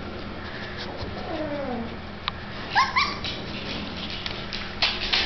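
Pitbull puppy whining: one drawn-out whine about a second in, then two short, high, rising yips about three seconds in. A few sharp taps near the end.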